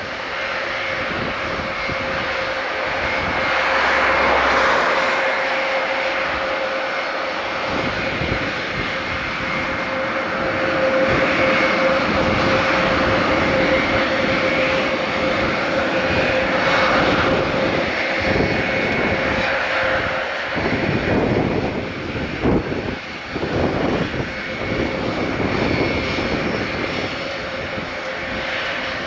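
Airbus A400M Atlas's four turboprop engines running as the aircraft rolls along the runway, a steady droning tone under a propeller rush that swells and fades.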